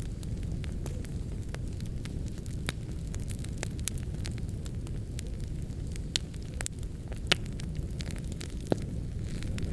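Wood fire in a fireplace crackling: a steady low rumble of burning with scattered sharp pops, two louder pops near the end.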